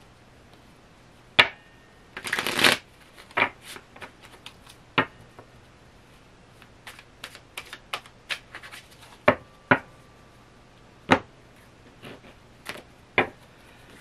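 Tarot cards being shuffled by hand: a short rustling run about two seconds in, then scattered sharp card snaps and taps.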